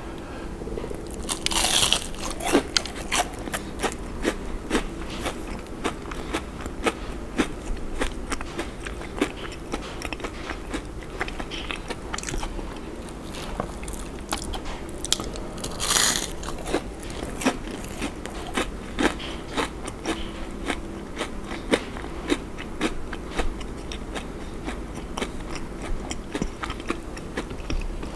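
Close-up crunching and chewing of a crispy, crumb-coated deep-fried shrimp donut, with loud crunchy bites about two seconds in and again around halfway, and steady crackling chews in between.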